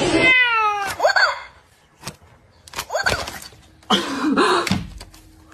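A domestic cat's drawn-out yowl, falling steadily in pitch over about a second, then a short second cry.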